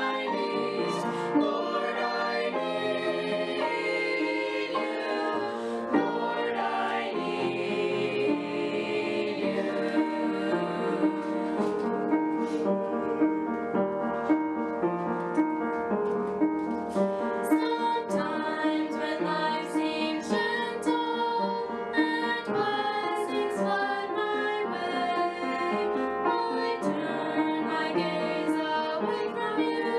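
A small mixed group of voices, a man and four teenagers, singing a sacred song together from printed music, with several voices sounding at once in held, changing notes.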